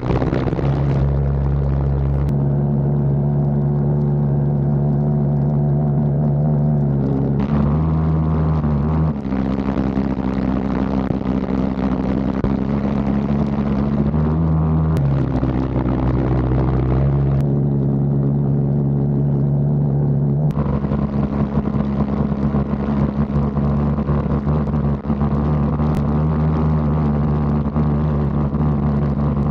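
Pulsejet engine on a ski sled running with a loud, steady drone as the sled slides across snow; the pitch and tone of the drone shift abruptly several times.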